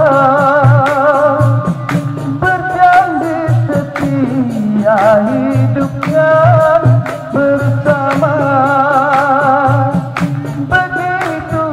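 Man singing a dikir barat song through a microphone, holding long notes with wide vibrato, over a steady percussion beat of low drum thuds and sharp taps.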